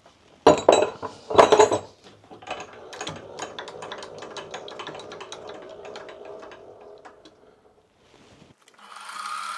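Metal-on-metal clatter and knocks of tooling being set up on a milling machine, then a run of light quick ticks, several a second, over a faint hum. About nine seconds in, the mill's spindle starts and runs with a steady whir.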